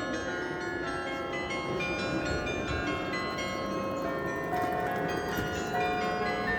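Church bells of the Nieuwe Kerk in Delft ringing, several bells sounding together and overlapping as each new stroke rings on under the next.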